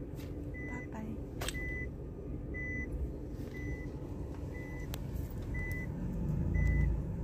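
Reversing warning beeper beeping about once a second, heard inside a van over a low engine rumble that grows louder near the end.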